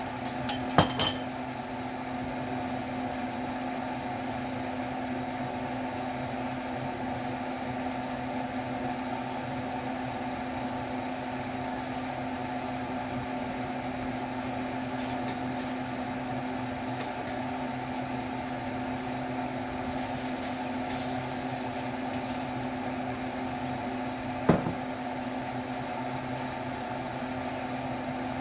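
Steady hum of a kitchen fan motor with a low, even tone. About a second in, a few quick clicks of a metal spoon against a ceramic bowl, and one sharp knock near the end.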